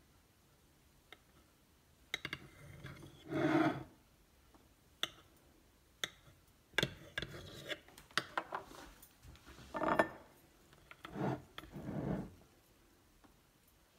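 Table knife cutting a steamed sponge cake, scraping and clicking against the enamel plate underneath in a series of short, irregular strokes.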